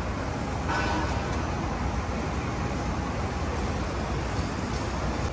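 Steady city traffic noise, with a brief higher-pitched sound about a second in.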